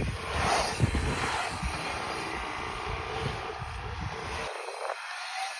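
Bike tyres rolling and carving on an asphalt pump track, a steady noisy rumble; the low rumble cuts off suddenly about four and a half seconds in.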